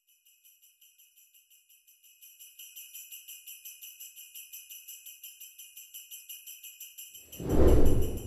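Sleigh bells jingling in a fast even rhythm, about six shakes a second, fading in over the first couple of seconds. Near the end a loud low whoosh swells up and dies away.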